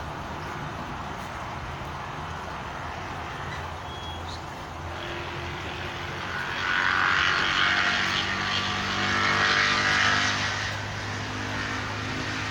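Top-load washing machine running with a steady motor hum, and a loud rush of water from about six to eleven seconds in, typical of the tub filling for the first rinse.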